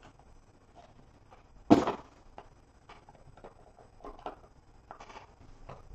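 Handling of a small cardboard trading-card box and the stack of cards taken from it: scattered light taps and scrapes, with one sharp knock a little under two seconds in.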